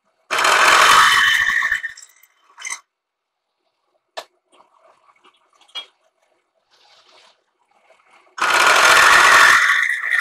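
End mill on a vertical milling machine cutting into a steel box tube, heard as two loud, rough cutting bursts of about a second and a half each, one near the start and one near the end. Between them come a few faint clicks and knocks.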